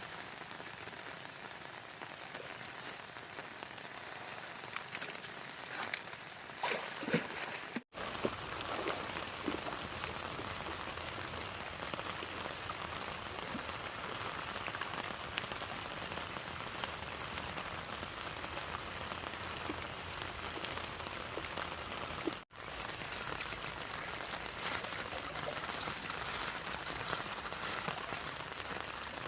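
Steady heavy rain falling, with scattered drops ticking; the sound drops out for an instant twice.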